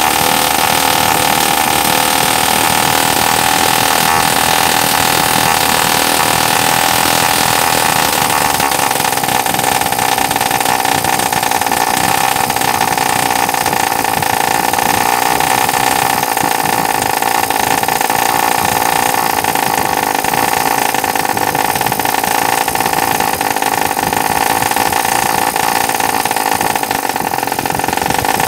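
Homemade miniature single-cylinder two-stroke engine running steadily at high speed on a gasoline and oil mix, a constant high-pitched buzz.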